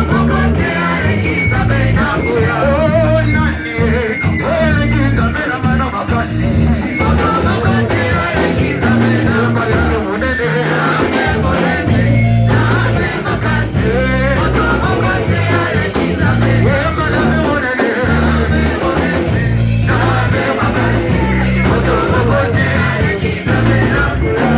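Live worship music: a band playing with singing voices over a bass line that steps from note to note.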